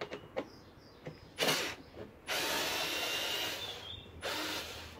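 Bosch Go Gen 3 3.6 V cordless screwdriver running at its maximum torque setting, backing a bolt out. A brief loud burst comes about a second and a half in, then a steady run of about a second and a half with a faint whine, and a shorter, quieter run near the end.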